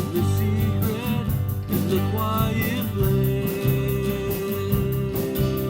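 Worship song played by a band: strummed acoustic guitar over sustained bass with a steady beat, and a long held melody note from about halfway through.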